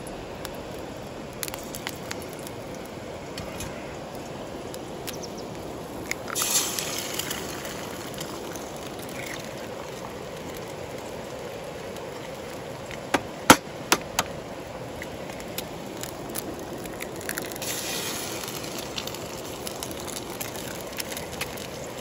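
Eggs frying in a camp frying pan: a rush of sizzling about six seconds in that dies down over a second or two, and another around eighteen seconds. About thirteen to fourteen seconds in come three sharp clicks, the loudest sounds, over a steady river murmur.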